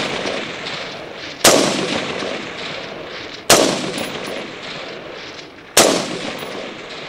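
Three rifle shots about two seconds apart, each a sharp crack followed by a long echo that rolls away and fades over about two seconds.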